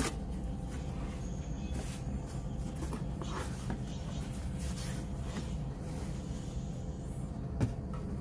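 Cardboard box flaps being opened and the packing inside handled: scattered rustles and taps, with a sharp tap at the start and another near the end, over a steady low hum.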